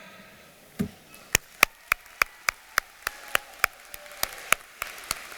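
A lone pair of hands clapping in the audience, sharp even claps at about three and a half a second for some four seconds, after a soft thump near the start.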